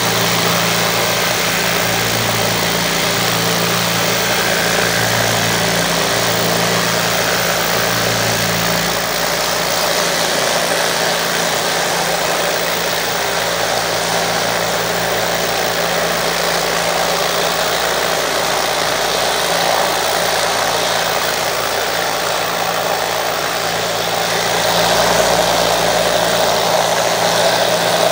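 Open-top vibratory rock tumbler running loaded with agates, pre-polish grit and water: a loud, steady motor hum under the churning rattle of the stones in the bowl, a little louder near the end.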